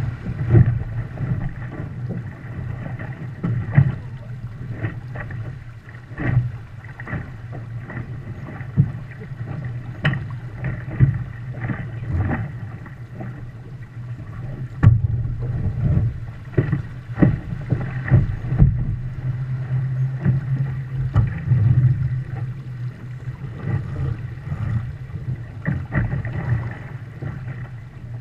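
Water rushing and slapping against the hull of a Viper 640 sportboat sailing heeled through light chop, with frequent irregular splashes and knocks over a steady low rumble.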